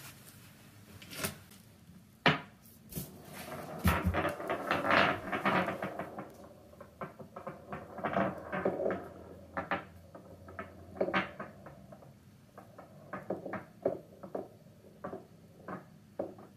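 A small ball rolling and bumping across a freshly tiled stone shower floor, giving irregular small clicks and knocks, busiest about four to six seconds in and then scattered.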